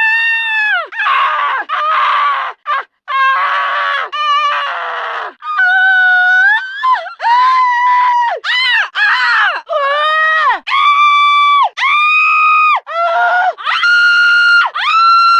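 A high-pitched voice giving a long run of squealing cries, each about half a second to a second long and dropping in pitch as it ends. The first few are rough and raspy; the later ones are clearer and come in a steady string.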